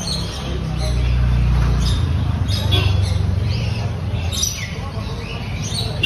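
Birds chirping and squawking in short high calls over a steady low hum that swells from about one to three seconds in.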